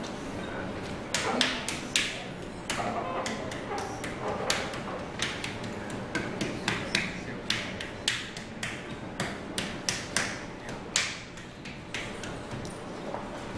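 Wooden paddle slapping and tapping soft clay pieces laid on a wooden board: an irregular run of sharp smacks and taps, the loudest about one and two seconds in.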